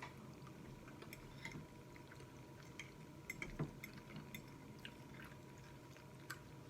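Faint, close-up wet eating sounds of someone chewing spaghetti with meatballs: scattered small mouth clicks and smacks.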